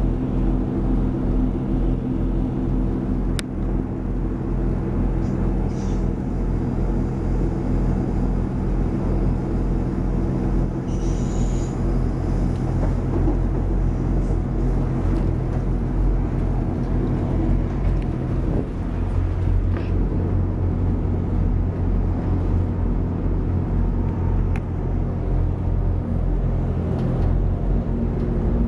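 Diesel multiple unit running at speed, heard from inside the carriage: a steady engine drone over the rumble of wheels on the track, with the engine note changing about two-thirds of the way through.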